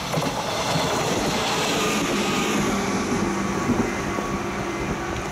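JR Shikoku 121 series electric train passing close by: the running noise swells as it arrives and eases as it moves away, with a faint tone underneath that falls slightly in pitch as it goes by. There are a couple of sharp clacks about three and a half seconds in.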